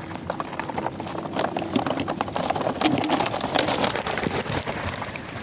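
A flock of young racing pigeons taking off from a release basket, their wings making a fast clattering flutter that builds to its loudest about three to four seconds in, then thins out as the birds fly off.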